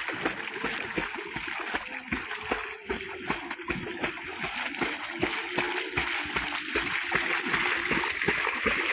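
Labrador retriever swimming and paddling hard through shallow water, its legs splashing continuously in quick, irregular slaps.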